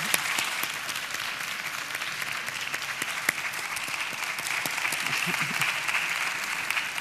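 A large audience applauding steadily, with a few sharper single claps standing out near the start.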